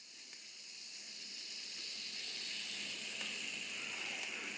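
Fizzing of a toy science kit's 'underwater volcano' reaction in a test tube after citric acid is added: a faint, steady hiss of bubbles that builds over the first couple of seconds and then holds.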